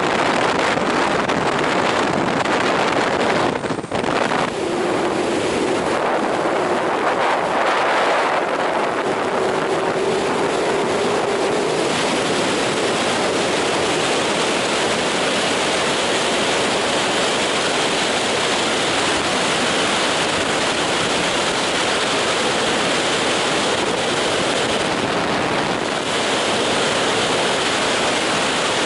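Loud, steady rush of freefall wind buffeting a skydiver's camera, starting with the aircraft slipstream at the open door and dipping briefly about four seconds in at the exit.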